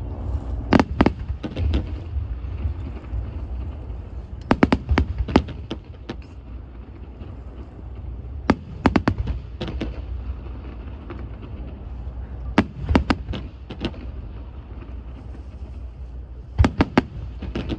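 Fireworks bursting overhead: sharp cracks in quick groups of two to four, a group about every four seconds. A steady low rumble runs underneath.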